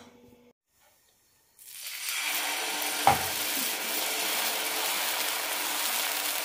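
Thick tapioca ada dosa batter sizzling steadily on a hot cast-iron tawa as a ladle spreads it into a round. The sizzle starts about one and a half seconds in, and a single knock sounds about three seconds in.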